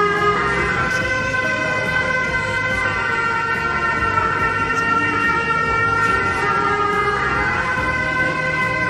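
Music of long held notes, several tones sounding together, shifting to new pitches every second or few seconds.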